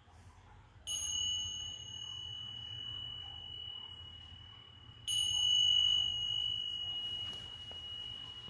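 Tingsha cymbals struck together twice, about four seconds apart; each strike gives a high, clear ring that sustains and slowly fades.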